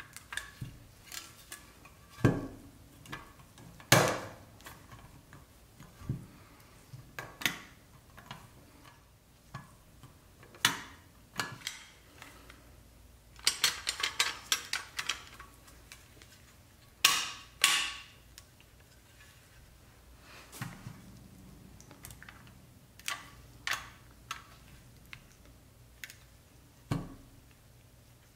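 Pressed-steel toy car parts and a sheet-metal bracket clicking, tapping and clinking as they are handled and fitted together by hand, in irregular single knocks with a quick run of clicks about halfway through.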